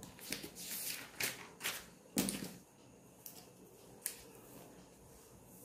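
About half a dozen short scratchy strokes and taps of a marker and hand at a whiteboard, the loudest a little over two seconds in, with two fainter ticks after it.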